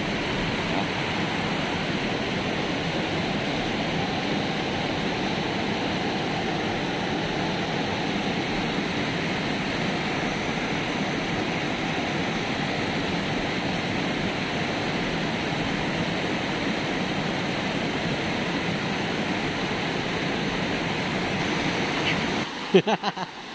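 River water pouring over a stepped concrete weir and churning in the pool below, a steady rush of white water. It cuts off near the end.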